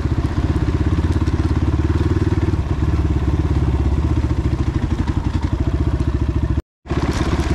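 Motorcycle engine running steadily with an even, fast pulsing beat. The sound drops out for a moment near the end.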